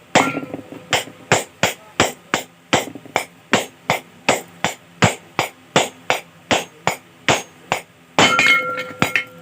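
Small hammer tapping a 6202 ball bearing into a ceiling fan's motor housing: a quick, even run of light metal taps, about three to four a second, with a louder ringing stretch near the end.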